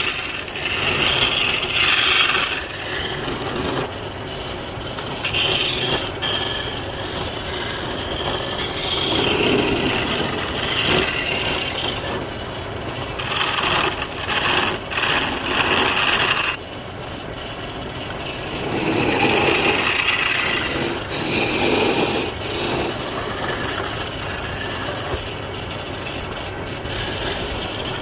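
A tool scraping and cutting into wood with a steady rasping sound that comes in uneven stronger stretches of a second or two.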